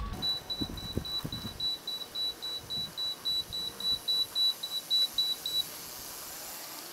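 A rapid series of short, high-pitched electronic beeps, about four a second, that stops about five and a half seconds in.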